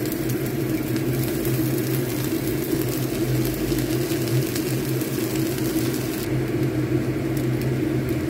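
Kitchen extractor fan running with a steady, even whir and hum over a stovetop pan of fried rice, with a few faint clicks of the spatula in the pan.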